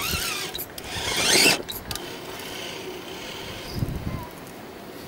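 Electric RC rock crawler's motor and gearbox whining as it is driven over rocks, the pitch rising and falling with the throttle and loudest about a second and a half in. A short low thump comes near four seconds in.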